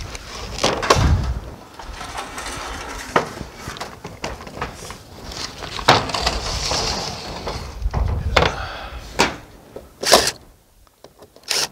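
Scattered knocks, clunks and scrapes as a length of rain gutter is handled and a ladder is climbed, with a sharp knock about ten seconds in.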